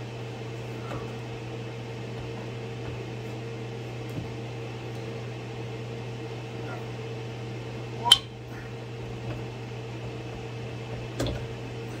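Hand PEX crimp tool snapping copper crimp rings closed on PEX pipe fittings: one sharp metallic snap about eight seconds in and a weaker one about three seconds later, over a steady low machine hum.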